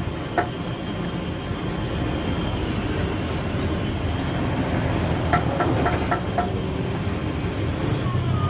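A steady low mechanical rumble, like a running engine or motor, with a few light clicks and taps over it around the middle.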